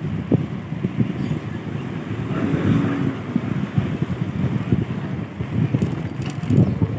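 Wind buffeting the microphone of a camera carried on a moving ride, a gusty low rumble with no clear engine note.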